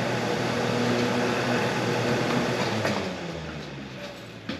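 Portable electric fan blowing on the condenser coil, standing in for the refrigerator's failed condenser fan motor. A click just before three seconds in switches it off, and it winds down to quiet.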